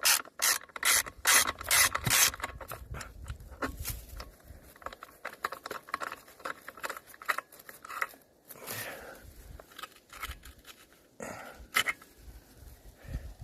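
Hand tools clicking and scraping on a brush cutter's muffler as the spark arrestor screen is taken out to be checked, suspected clogged because the machine is bogging down. A quick run of sharp clicks comes first, then scattered clicks and scraping.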